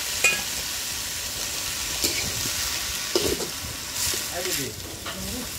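Chopped greens sizzling in hot oil in a black kadai, a steady hiss, while a metal spatula stirs them, scraping and clicking against the pan several times.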